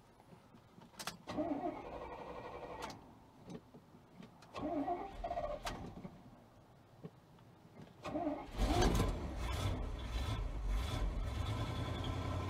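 A long-dormant 1975 Chevrolet C20 pickup's engine being started: the starter cranks in two short bursts, then about eight and a half seconds in the engine catches and keeps running on its freshly connected fuel supply.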